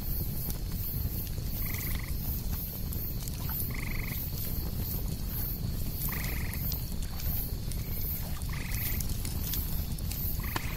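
An animal calling: five short, clear, two-toned calls about two seconds apart, over a steady low rumble.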